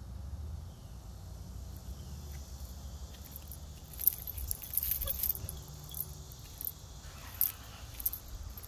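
Background ambience: a low steady rumble, with scattered light clicks and rustles from about halfway in, the sharpest a single click about four seconds in.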